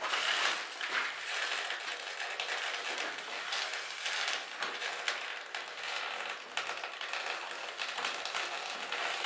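Snow packed onto an overheating corrugated stove flue pipe to cool it, crackling and sizzling steadily with dense small ticks as it melts.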